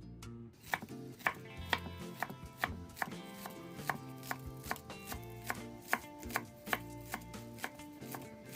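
A knife chopping on a cutting board in a steady rhythm of about two strokes a second, over background music.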